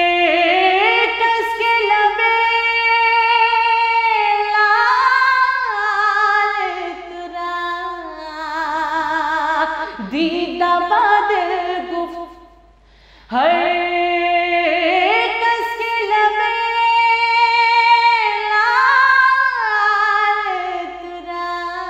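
A woman singing a naat (devotional praise poem) solo, in long ornamented phrases of held and sliding notes. The two phrases are split by a short breath pause about halfway through, and no instruments are heard.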